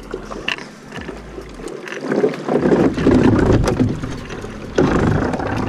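Water sloshing and splashing around a small boat as it is paddled and pushed through shallow, rocky water, with a few knocks. The splashing swells about two seconds in and again near the end.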